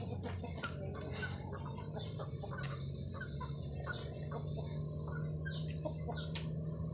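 Chickens clucking and birds chirping in short scattered calls over a steady high drone of insects, with a few sharp clicks.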